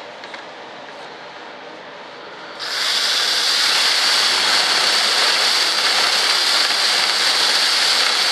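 Cordless drill boring through wood with a sharp 3/4-inch paddle bit. A loud, steady cutting hiss starts about two and a half seconds in.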